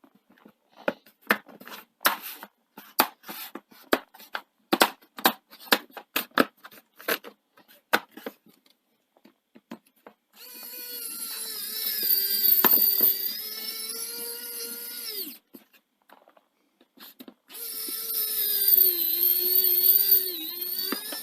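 Plastic laptop back cover being pressed and clicked into place, a run of sharp irregular clicks and taps, followed by a small electric screwdriver running twice, a few seconds each time, driving in the back-cover screws, its whine sagging slightly in pitch as each screw tightens.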